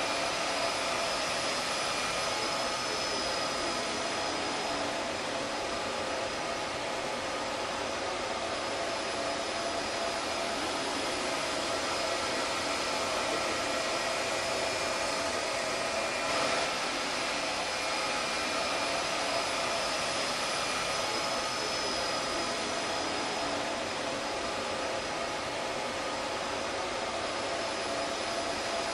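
Steady whir of the cooling fans in racks of running network switches and servers: an even rushing hiss with a few faint steady whines held in it.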